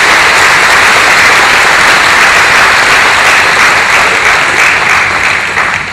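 Audience applauding in a hall, loud and steady, dying away near the end.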